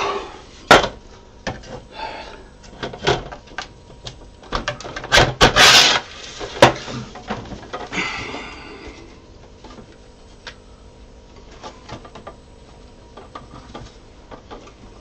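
Large 3D-printed plastic droid leg parts being handled and fitted together on a workbench: an irregular run of knocks, clicks and scrapes, busiest in the first half, then only light taps.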